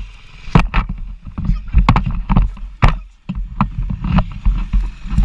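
Scuffle in long grass heard through a body-worn action camera: a rapid, irregular run of thuds and knocks as two men grapple, with grass rustling and the camera being jolted.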